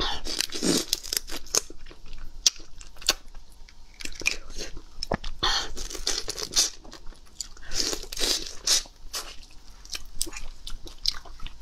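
Raw black tiger prawn shell cracking and tearing as it is pulled apart by hand and bitten, with close chewing. Irregular crunches and sharp snaps come one after another.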